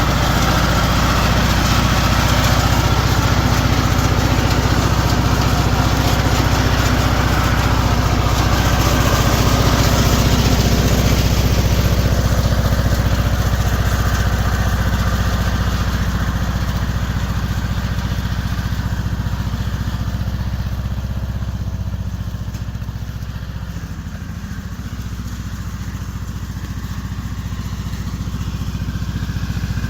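Riding lawn mower's small engine running steadily while driven along a rough trail, easing off a little past two-thirds of the way through and picking up again near the end.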